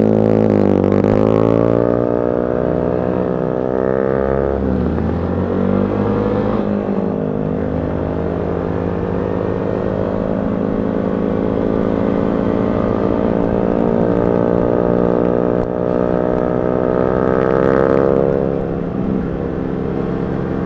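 125cc motorcycle engine pulling away and changing up through the gears, its pitch rising and dropping with each shift, then holding a steady note at cruising speed, with another gear change near the end.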